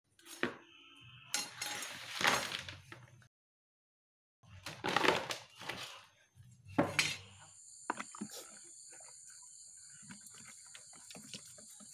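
Small fish being shaken out of a mesh net trap into a plastic basin: several bursts of flopping, slapping and rattling. After a break, faint scattered clicks and splashes under a steady high whine.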